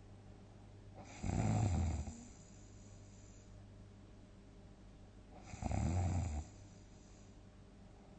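A sleeping person's big snores: two loud snores about four seconds apart, each lasting about a second.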